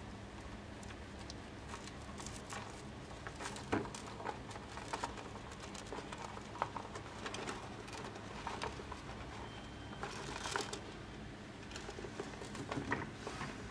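Small rodent rustling in paper cage bedding: irregular scratchy rustles and light clicks as a hamster moves and burrows, over a faint steady low hum.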